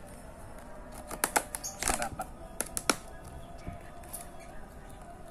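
Plastic lid being pressed and snapped shut on a clear plastic food container, giving a series of sharp plastic clicks and crackles from about one to three seconds in.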